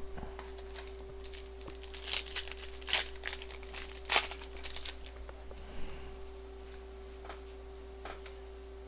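A trading-card booster pack wrapper being torn open by hand, crinkling and ripping in a quick cluster of crackles that starts about two seconds in and is loudest in the middle. Afterwards only a few light clicks remain, over a steady faint hum.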